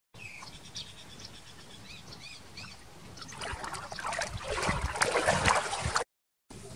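Water splashing and sloshing as a swimming dog paddles with a monkey clambering onto its back. It grows louder from about three seconds in and cuts off suddenly just after six seconds.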